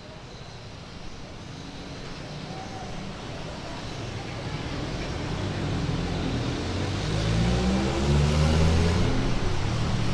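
A motor vehicle's engine passing close by, growing steadily louder, its engine note rising in pitch over the second half.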